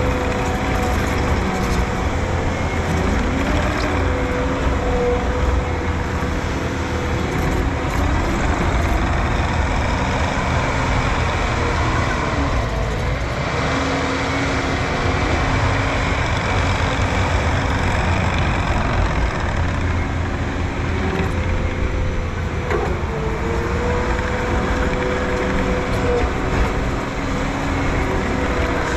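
Heavy-equipment diesel engine running steadily, with a steady whine over it that dips briefly about three-quarters of the way through.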